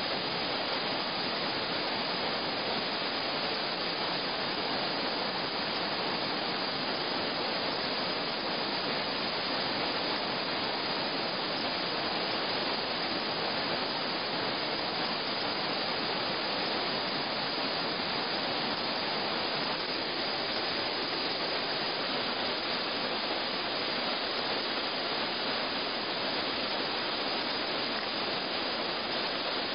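Whitewater rapids of the Tsina River rushing steadily, a constant roar of fast-moving water with no breaks.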